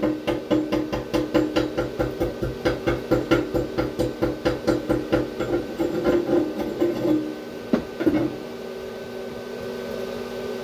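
Stick welding arc running in an even pulsing rhythm, about three to four pulses a second, then stopping about seven seconds in. A couple of sharp clicks follow, then only the welder's steady hum.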